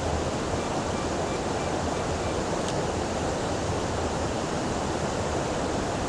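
Small woodland waterfall and river rapids rushing: a steady, even roar of whitewater tumbling over rocks.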